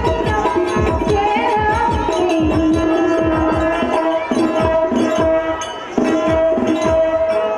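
Bayalata stage accompaniment: a two-headed barrel drum played in quick strokes whose pitch falls after each hit, over a steady held drone, with a wavering melody line above it in the first couple of seconds. The music thins out briefly about six seconds in, then comes back with a sharp drum stroke.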